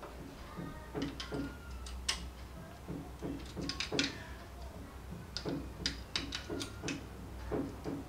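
Sharp plastic clicks and taps from handling a disassembled universal AC remote, its AA battery being worked loose in the battery compartment, with a run of quick clicks in the second half. A low steady hum sits underneath.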